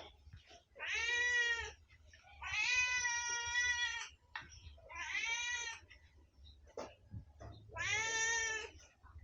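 Domestic cat meowing four times, each meow about a second long and the second drawn out longest, with a few faint clicks in between.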